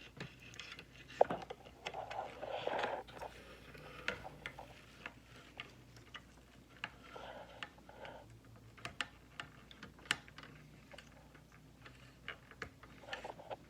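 Irregular light clicks and rustling of hands working on electrical wiring with small tools, a sharper click about a second in and another about ten seconds in.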